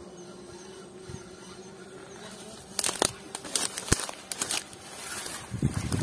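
A fish being played on a spinning rod and reel. Irregular sharp clicks and crackles start about three seconds in, and the hooked fish splashes at the water's surface near the end.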